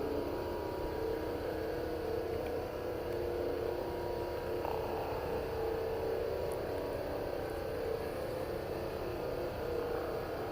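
A steady droning hum with several held tones, the kind of unexplained 'strange sound' that onlookers call so loud and unlike anything they have heard.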